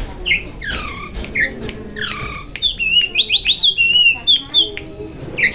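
Oriental magpie-robin (kacer) singing a varied whistled song: loose, downward-sliding notes at first, then from about halfway a fast run of short, sharp repeated notes.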